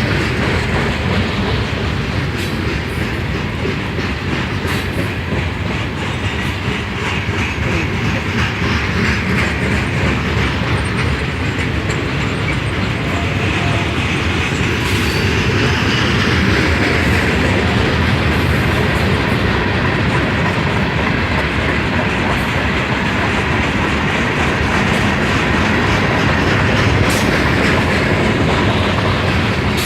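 Freight train cars rolling past in a steady, continuous rumble, with wheels clacking over the rail joints.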